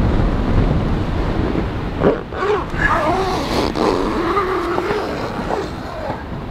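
Storm wind buffeting the microphone as a van's roll-out awning is pulled in. About two seconds in there is a sharp knock, then a wavering, moaning pitched sound for about three seconds.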